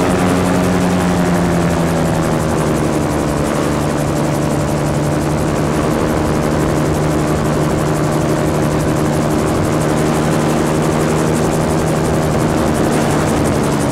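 Gyrocopter engine and propeller running steadily in flight, with heavy wind rush on the microphone. The engine note drops slightly about two seconds in, as the engine is throttled back, then holds steady.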